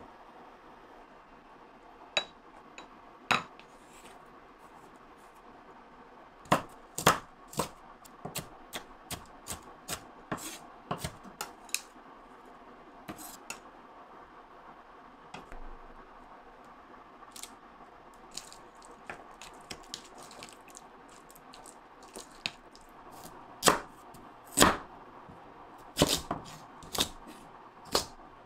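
Kitchen prep sounds: scattered clicks and taps of utensils against a bowl and containers, then knife strokes on a wooden cutting board near the end.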